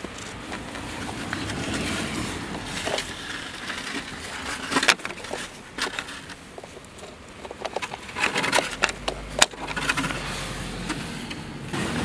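Plastic clicks and scraping as the fuel-door latch of a 2006 Chevrolet Aveo is worked out of its housing and handled with gloved hands. The sharpest snaps come about five seconds in and again just after nine seconds, among a run of smaller clicks.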